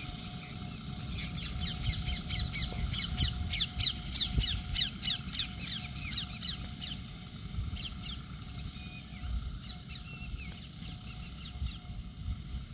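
A bird calls a fast run of short, falling notes, about five a second, starting about a second in and ending around seven seconds, followed by a few scattered calls. Underneath runs the low, steady rumble of a John Deere 5405 tractor working the field.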